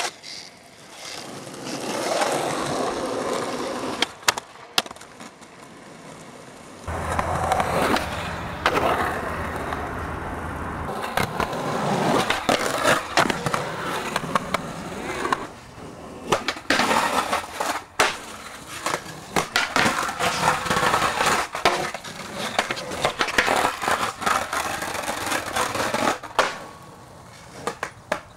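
Skateboard wheels rolling on pavement, broken by many sharp clacks and knocks of the board popping, landing and hitting the ground, most of them in the second half.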